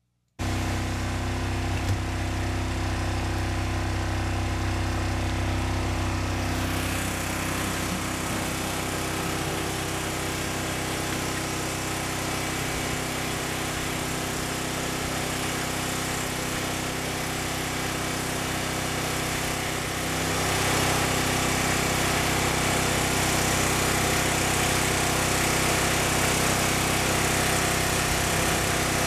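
Briggs & Stratton portable generator engine running at a steady speed, its exhaust through an added car muffler. The sound gets brighter about six seconds in and louder again about twenty seconds in as the garage door around it is opened up.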